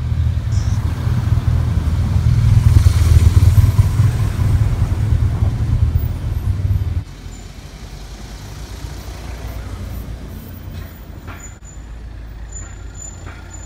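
Motorcycle engine running as it rides slowly down a narrow street, a loud low rumble with a rush of noise over it. About seven seconds in it cuts off abruptly to a much quieter town street background.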